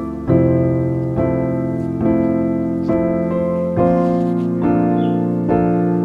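Background piano music: slow, sustained chords, a new one struck roughly every second and left to ring and fade.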